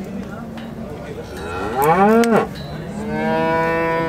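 Cattle mooing: a short moo that rises and falls in pitch, ending with a sharp click, then a longer, steadier moo from about three seconds in.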